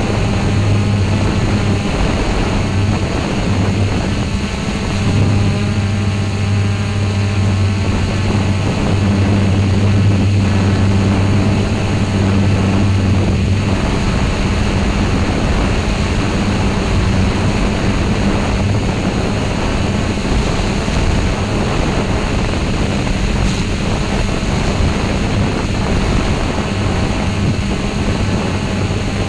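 A small multirotor drone's electric motors and propellers running steadily in flight, a loud even hum whose low tone grows stronger for several seconds around the middle.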